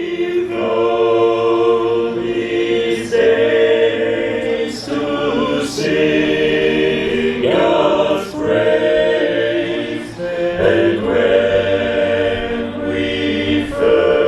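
A choir singing a cappella, several voices holding chords that change every second or two, with sung consonants cutting through.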